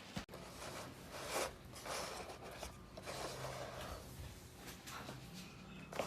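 Irregular rustling and handling noises, several short scrapes in a row.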